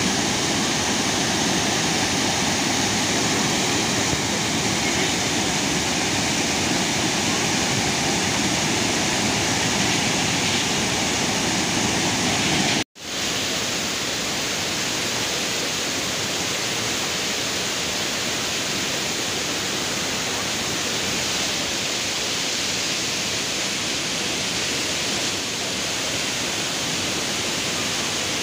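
Waterfall: a wide curtain of water falling over a ledge into a pool, a loud, steady, even rush. It breaks off for an instant about thirteen seconds in, then carries on as before.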